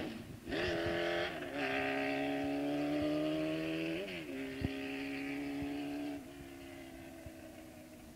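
Honda CB750's air-cooled inline-four engine accelerating as the motorcycle rides away. The pitch climbs, then drops with each upshift, about three times, and the engine fades as it moves off.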